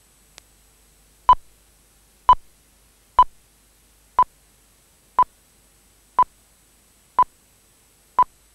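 Countdown-leader beeps: a short beep at one steady pitch, once a second, eight times in a row.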